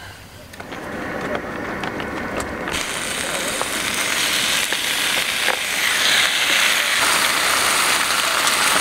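Marinated spicy chicken (dak-galbi) sizzling on a hot griddle pan. The sizzle builds from about a second in and becomes a loud, bright hiss about three seconds in.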